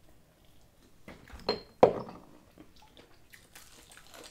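Close-miked eating sounds: two sharp knocks about a second and a half in, the second the loudest, then faint crackling as a crispy fried chicken wing is bitten into.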